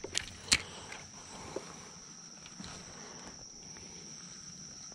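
Steady high-pitched insect chorus, with a couple of sharp clicks in the first half second.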